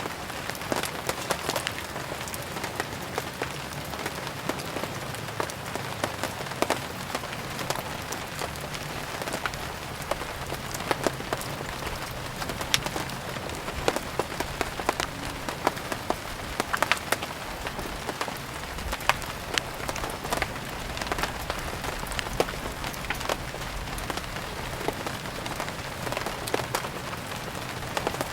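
Steady rain falling, mixed with the crackle of burning firewood: a constant hiss scattered with many short, sharp pops and clicks.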